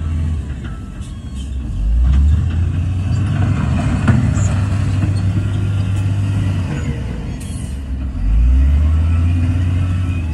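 Heavy diesel engine of earthmoving machinery running under changing load. The rumble rises about two seconds in and again near the end, with a few scattered knocks and clanks.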